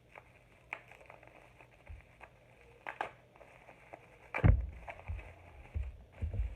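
Handling of a toy figure and its plastic and cardboard packaging: scattered light clicks and crinkles, a sharp knock about four and a half seconds in, then a few low bumps.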